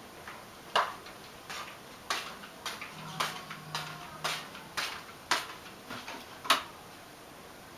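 A series of about eleven sharp taps or clicks, roughly two a second, evenly spaced, for about six seconds.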